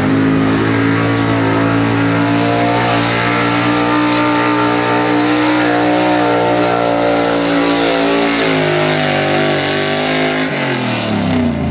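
Chevrolet 4x4 pickup's small-block V8 running hard at high, steady revs under load while pulling a weight-transfer sled. Over the last three seconds the revs fall away in steps as the pull ends.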